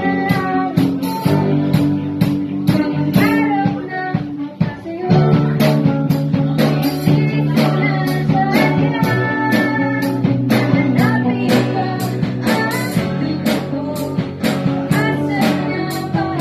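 Live band playing a pop-rock song: a woman sings lead into a microphone over electric guitar, bass guitar and drums keeping a steady beat.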